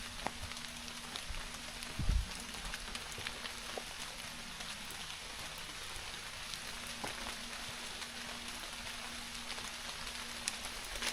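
Steady rain falling, with scattered drops ticking; a single low thump about two seconds in.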